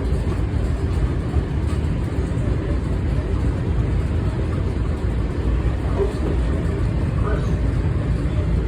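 Steady low rumble of a commuter train, heard from inside the passenger car.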